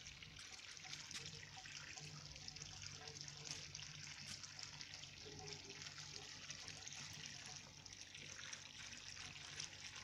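Faint, steady running and trickling water in an outdoor pool, with a low steady hum underneath.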